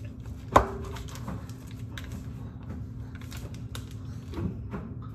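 A kitchen knife cutting through a plastic-wrapped tube of ground beef knocks once sharply on the wooden cutting board about half a second in, followed by scattered small clicks and crinkles as the plastic wrapper is handled and peeled.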